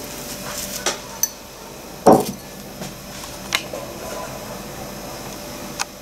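Ceramic crockery being handled and set down: about five sharp clinks and knocks, the loudest about two seconds in.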